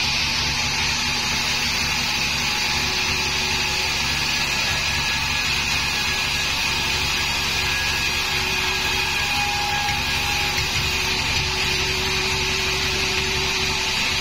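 Sawmill band saw running steadily as its blade rips lengthwise through a wooden slab on the carriage.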